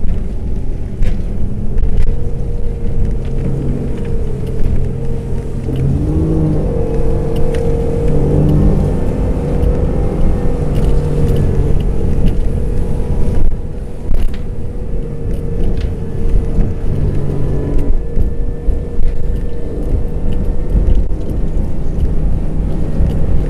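Mercury Verado 350 hp outboard running hard at planing speed, over the heavy rush of water and wind past the hull. The engine note steps up in pitch about six seconds in and wavers up and down after that.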